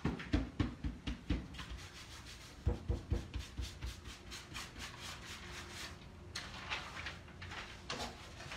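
Hand rubbing a balled-up wad firmly over the back of a sheet of brown paper, burnishing a monotype print onto fabric beneath. It starts with quick, even back-and-forth strokes and settles into softer, continuous rubbing. Near the end the paper rustles as it is lifted off the print.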